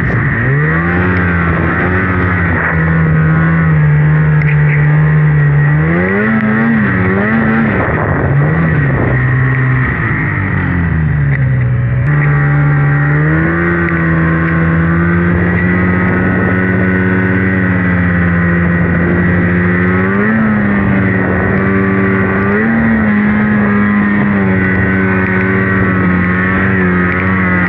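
Polaris RMK Khaos two-stroke mountain snowmobile running under throttle through deep powder. Its engine note mostly holds steady but swings up and down quickly several times as the throttle is worked, with a steady high whine over it.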